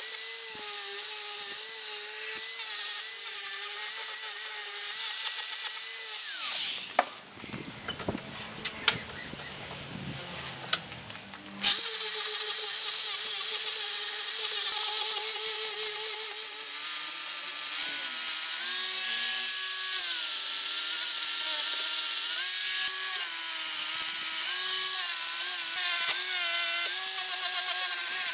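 Angle grinder with a sanding disc running against a wooden knife handle, its motor whine wavering in pitch as it is pressed into the wood. About six seconds in the grinder winds down and a few sharp knocks and clicks follow, then it runs again from about twelve seconds in.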